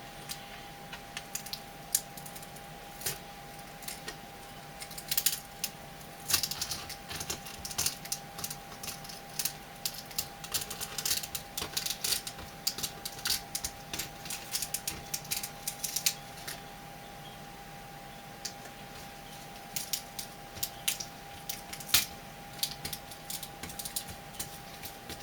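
Plastic laptop screen bezel being pried and peeled off adhesive tape, giving irregular clusters of sharp clicks and crackles with a short lull about two-thirds of the way through. A faint steady tone runs underneath.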